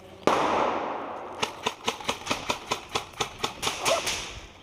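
Airsoft gun firing a quick string of single shots, about five a second, sharp clicking pops. Before the string, a sudden loud noise that fades over about a second.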